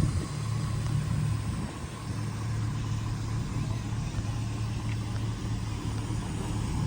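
A car engine idling: a low, steady rumble.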